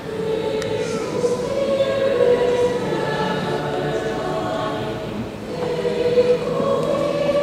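Mixed choir of boys' and girls' voices singing together in long, held notes, with a brief dip about five seconds in.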